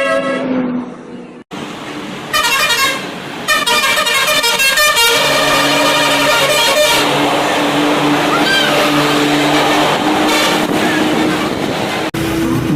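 Bus 'telolet' multi-tone musical horns sounding rapid, repeating melodic toots, in short clips cut together. The horns stop about seven seconds in, leaving steady noise.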